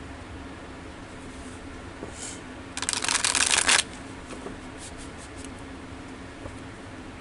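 A deck of tarot cards riffle-shuffled by hand: a fast run of card flicks about three seconds in, lasting about a second, then a few soft clicks as the two halves are squared and bridged back together.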